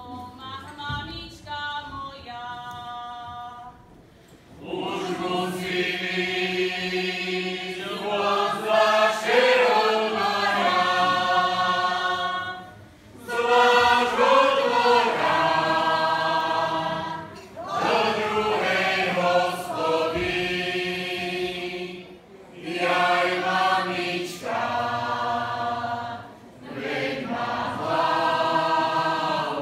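A group of voices singing a Slovak folk song in loud phrases of a few seconds each, with short breaks between phrases, after a quieter opening of about four seconds.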